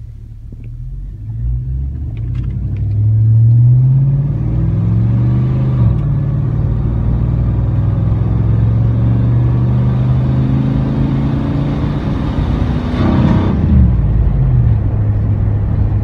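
1999 Chevy Silverado's 5.3L LM7 V8 through a Cherry Bomb Extreme muffler, heard inside the cab under acceleration: the exhaust note climbs in pitch, drops at an upshift about six seconds in, climbs again and drops at another shift near the end, then holds steady.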